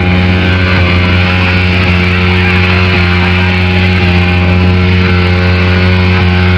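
Motorcycle engine held at high, steady revs during a burnout, one unchanging note.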